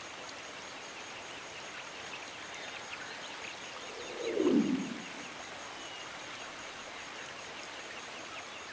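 Steady rush of a stream pouring over rock, with scattered high chirps. About four seconds in, a louder whoosh lasting about a second falls in pitch.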